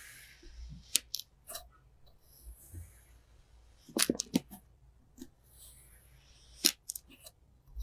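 Knife blade cutting down through a sculpted clay head, giving a series of sharp, crisp clicks and crunches as each slice is pressed off. The loudest cluster comes about four seconds in.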